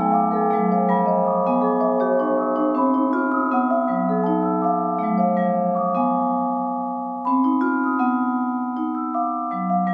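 Vibraphone played with four mallets: struck notes ring on and overlap one another, with a louder fresh chord about seven seconds in.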